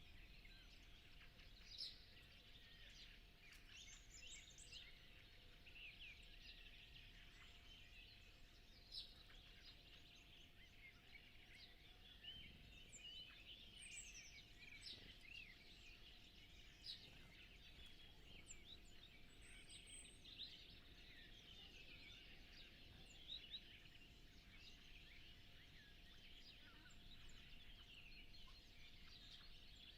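Faint dawn chorus of many songbirds calling and singing at once in short chirps and trills, with a faint steady hum underneath.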